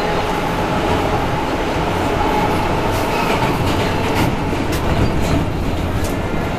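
Inside an R160A-2 New York subway car running on the E line: steady rumble of wheels and running gear, with a faint steady whine and a few clacks over rail joints.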